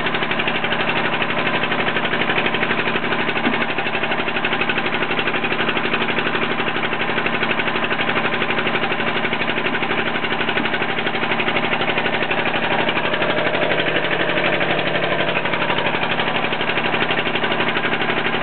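A riverboat's engine running steadily and loudly, a noisy, fast, even chugging that does not change pace.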